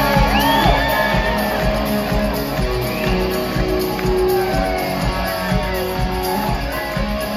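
Rock band playing live through the PA: electric guitar over a steady drum beat.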